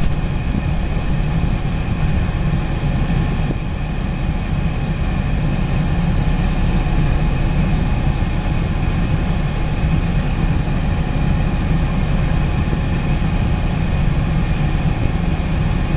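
Idling vehicle engine: a steady low rumble with a faint, steady high whine over it.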